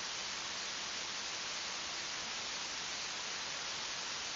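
Steady, even hiss like static, with no other sound on top of it.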